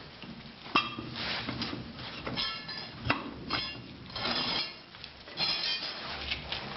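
Steel parts of a forging machine knocking and clanking, with short metallic rings on several of the strikes. There are about half a dozen separate clanks, spaced a second or so apart.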